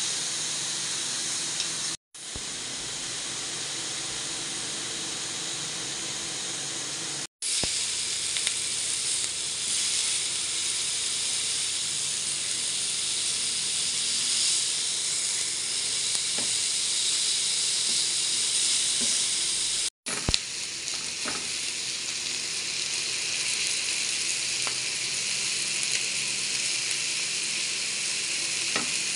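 Pork belly sizzling on a hot ridged grill pan, a steady frying hiss with a few light clicks and three very short gaps.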